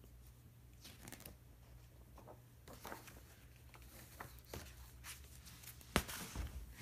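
Picture-book pages turned and the book handled: soft paper rustles and light taps. About six seconds in comes a sharp knock, then a few smaller bumps, as a hand reaches for and touches the recording device.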